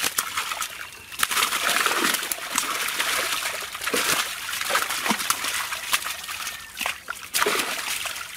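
Netted fish thrashing in shallow water, a continuous patter of splashes and drips.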